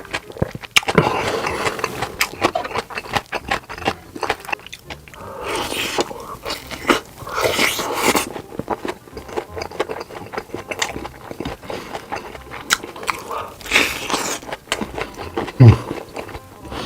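Close-miked eating: a person biting and chewing food, with many sharp mouth clicks and several short rushes of noise lasting about a second each.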